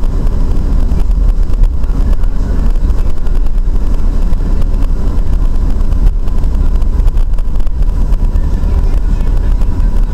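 Steady low rumble of road and engine noise heard from inside a moving vehicle, with a faint steady high tone throughout.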